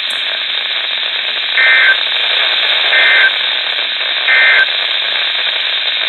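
NOAA Weather Radio audio through a Midland weather radio's speaker: three short bursts of buzzy digital tones, about 1.3 seconds apart, over steady radio hiss. These are the SAME end-of-message code that closes the warning broadcast.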